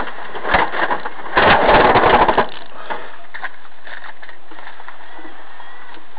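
Collision noise inside a truck cab: loud knocks and clatter about half a second in and again for about a second from just after 1 s, then a steady cab noise.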